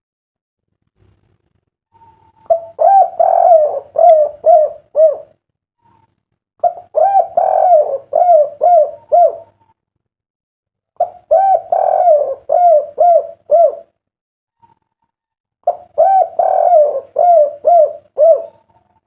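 Spotted dove (derkuku) singing its kuk-3 song: four loud cooing phrases a few seconds apart, each a run of rounded coos ending in short clipped notes.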